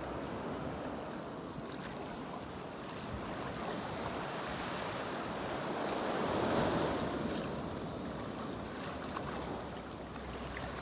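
Sea surf washing and breaking at the water's edge, with wind buffeting the microphone; one wave surges loudest a little past halfway.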